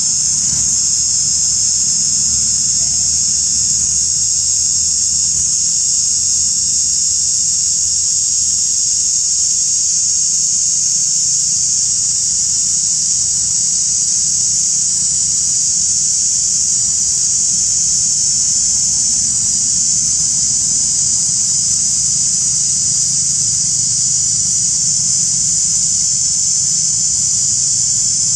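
Loud, steady, high-pitched drone of an insect chorus that never lets up, over a faint low rumble.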